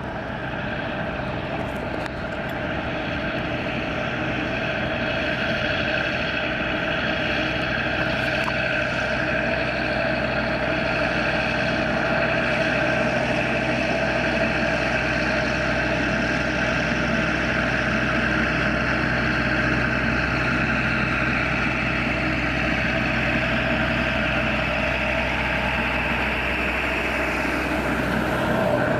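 Diesel locomotive of a narrow-gauge sugar cane train running steadily as it approaches, growing slowly louder and loudest near the end as it passes close by.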